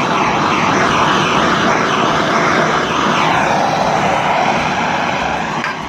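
Gas torch flame burning with a steady, loud rushing hiss as it heats a ceiling fan's stiff winding lead wires to soften them for pulling out. It dies away near the end.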